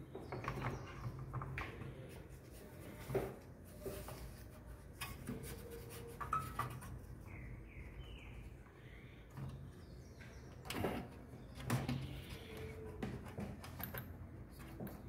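Scattered knocks and clicks of hands handling a power cord against the open metal chassis of an old desktop computer, with a few faint chirps about six seconds in.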